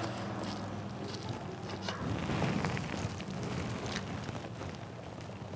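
Close-up eating sounds: chewing a mouthful of rice and mashed pumpkin vorta, with fingers mixing rice on a plate, heard as a steady run of small clicks and smacks.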